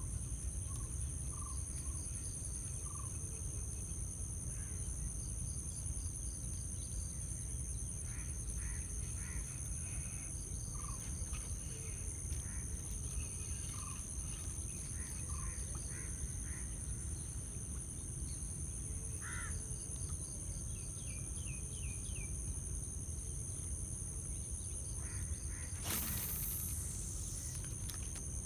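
Crickets or other insects keep up a steady, high two-pitched drone, with scattered short bird chirps over a low rumble. Near the end a brief sound falls steeply in pitch.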